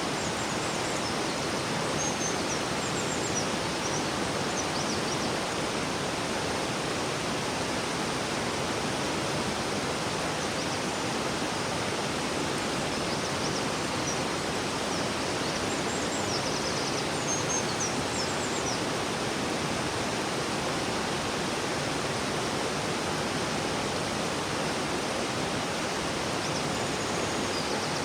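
A river flowing with a steady rushing sound, with a few short runs of faint high chirps now and then.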